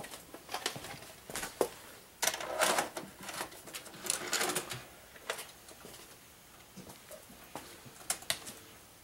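Hands working a Sanyo VWM-320 VCR and a VHS head-cleaning cassette: a run of sharp clicks, knocks and short scrapes, loudest about two and a half and four seconds in.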